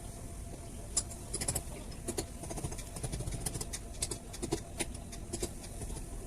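Irregular light clicks and taps of hand tools handling metal parts, over a steady low rumble.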